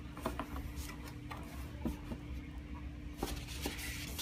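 Hands handling an opened cardboard box and the papers inside it: scattered light clicks, taps and rustles, over a faint steady hum.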